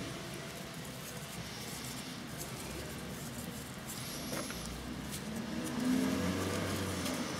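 A low motor-like hum that swells about six seconds in and eases off near the end, over faint handling noise.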